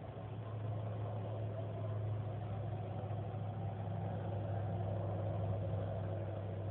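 Steady low droning hum with a mid-range overtone, getting slightly louder about a second in and then holding level. It is the unexplained 'strange noise in the sky' that the recorder reports hearing.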